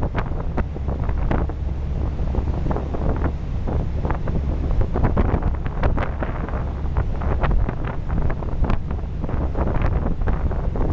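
Wind buffeting the microphone in irregular gusts on the open deck of a river tour boat, over a low steady rumble from the boat under way.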